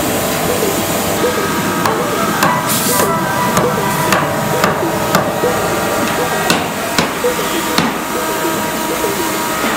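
Wooden-handled mallet knocking the slats and uprights of a wooden chair back together during assembly: about ten sharp knocks, irregularly spaced, starting about two seconds in and stopping near the end.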